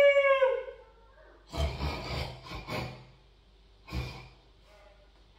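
A person imitating animals with their voice: a drawn-out, cat-like meow at the very start, then harsh, rasping animal noises in a few bursts from about a second and a half in, and one short one near the end.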